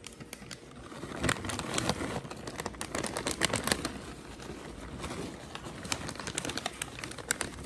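Plastic bag of shredded cheese crinkling and rustling as cheese is shaken out of it, in a run of irregular small clicks and crackles.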